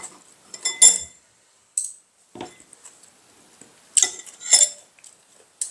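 Chopsticks clinking against ceramic bowls during a meal: several sharp clinks, each with a brief ring, the loudest about a second in and twice around four seconds in.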